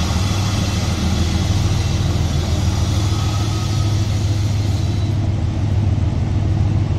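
Goods train running: a steady low rumble and hum, with a hiss over it that dies away about five seconds in.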